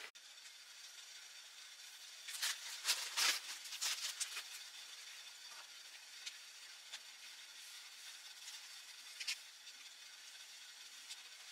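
Crinkly rustling of a paper stick packet of cocoa being handled and tipped into a stainless steel camping mug, over a steady hiss. The rustling is bunched from about two to four and a half seconds in, with a sharp tick near the end.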